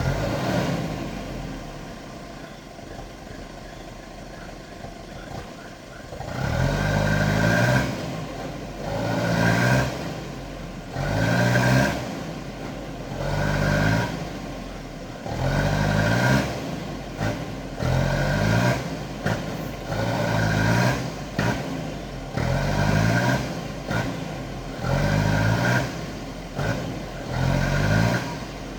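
Diesel engine of heavy equipment revving up and easing back over and over, about every two seconds, with a whine rising on each rev as it works under repeated load. Before that it runs quieter for several seconds.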